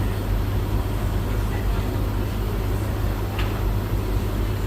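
A Beko washing machine on its final rinse and a Hoover tumble dryer running together: a steady low mechanical hum from motors and turning drums.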